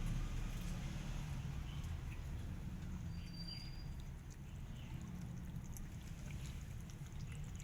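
Cat lapping soup with quick, faint wet licks, over a steady low rumble; a short high-pitched tone sounds briefly about three seconds in.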